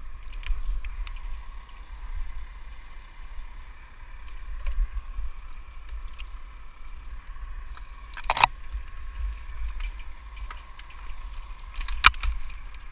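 Wind buffeting the microphone in a low, uneven rumble. A few sharp clicks and rustles come through it, with the loudest about eight and twelve seconds in.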